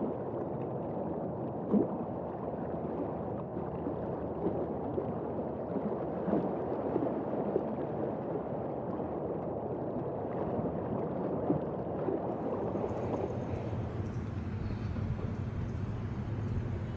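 River water gurgling and sloshing around a kayak, with a few small irregular knocks. About twelve seconds in, it gives way to a steadier low rumble with a high hiss.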